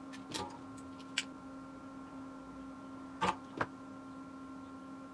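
Steady electrical hum with four light clicks and taps of small parts and tools being handled on a workbench during a capacitor replacement; the last two come close together a little past the middle.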